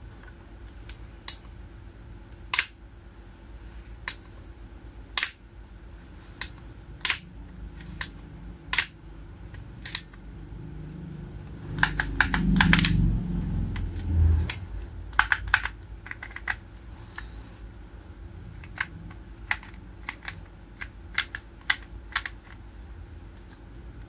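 Sharp plastic clicks, one every second or so, from a toy transformation-belt buckle being handled, with a louder stretch of quick clicks and a low thudding rumble a little past halfway.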